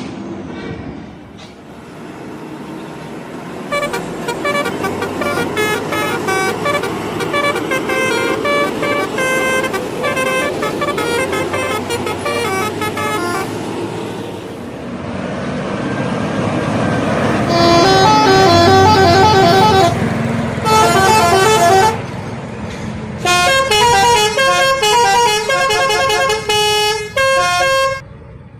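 Bus 'telolet' horns, sets of multi-tone air horns, playing quick stepped melodies over bus engine and traffic noise. The tunes come in three long passages, the last two louder and in short repeated phrases, with a stretch of engine rumble and no horn in between.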